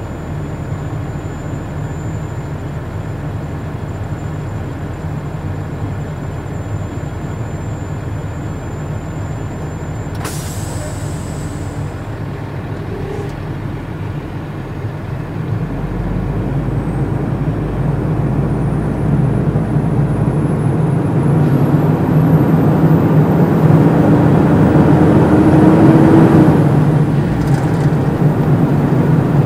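A heavy truck's diesel engine idles, heard from inside the cab. About ten seconds in there is a sharp air-brake hiss. From about sixteen seconds the engine grows louder as the truck pulls away and gathers speed, with a rising whine.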